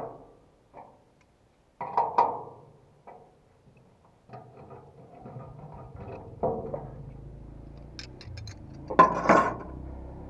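Spanners on the work light's mounting nut and bolt as it is loosened: scattered metal-on-metal clinks and scrapes. The loudest cluster of clinks comes about nine seconds in.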